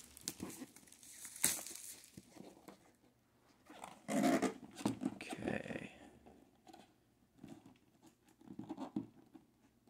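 Cardboard rustling and scraping as a large boxed vinyl record set is worked out of its snug packaging and brought onto a wooden tabletop. A sharp knock comes about a second and a half in, and a louder scrape-and-rustle about four seconds in.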